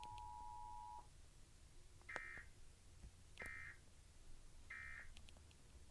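Emergency Alert System Required Monthly Test broadcast: the steady two-tone attention signal cuts off about a second in, then three short bursts of data tones, about a second and a quarter apart, sound the end-of-message code that closes the alert.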